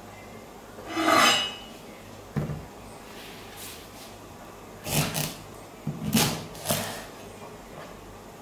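An ear of corn in its husk and a kitchen knife handled on a wooden cutting board: a loud rustle about a second in, then scattered knocks and scrapes on the wood.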